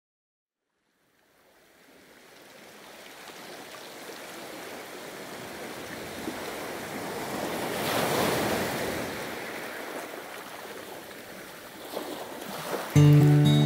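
Sea surf: waves breaking, fading in from silence over the first couple of seconds, swelling to a crash about eight seconds in, then ebbing. Near the end an acoustic guitar comes in abruptly, its plucked notes louder than the surf.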